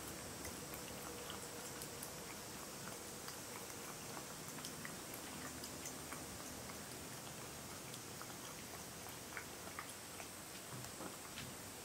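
A cat lapping milk from a drinking glass: faint, irregular small wet clicks over a steady low hiss, a few of them a little louder near the end.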